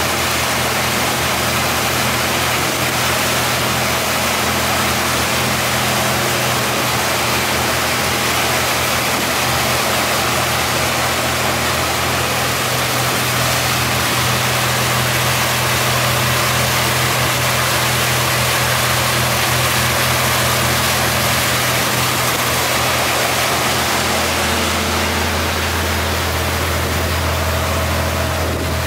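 Motorboat engine running steadily under the constant rush of churning wake water. Near the end the engine's hum drops to a lower, stronger note.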